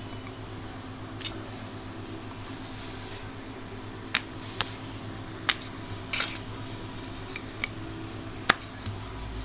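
Sharp, short knocks and clinks, about eight scattered through, the loudest near the end: a wooden rolling pin and steel plates handled on a stone kitchen counter while dough is flattened for wheat parotta. A steady low hum runs underneath.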